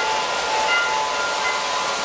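Lionel model trains running on metal track: a steady rolling noise with short, high ringing tones at several pitches that come and go.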